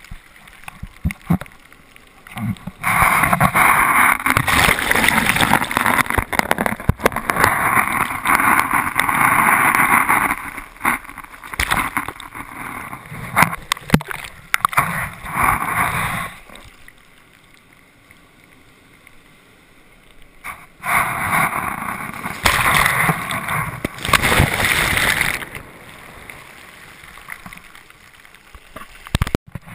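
Surf washing around a camera held in the shallows, heard muffled and bubbling from underwater: a long loud rushing surge of over ten seconds, then a quieter stretch, then a second surge of a few seconds.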